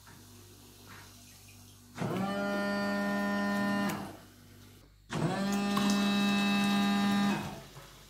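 Small electric pump motor in a homemade soda fountain, pumping cola into a glass. It runs twice, about two seconds each time, with a steady hum that winds up quickly at each start and then cuts off.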